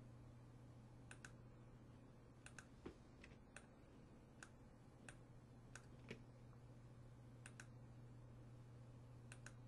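Faint computer mouse clicks, scattered through and often in quick press-and-release pairs, over a low steady hum.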